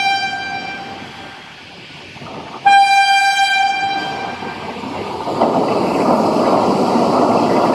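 Vande Bharat Express train set sounding its horn, a single steady note. The tail of one blast fades in the first second, and a second blast starts sharply just under three seconds in and lasts about a second and a half. After it comes the rising rush of the train passing through the station at speed without stopping.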